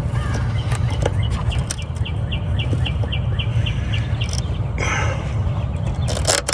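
A small bird chirping a rapid, even series of short high notes, about four a second, over a steady low rumble. A few light clicks and a brief rustle near the end come from hand tools being handled.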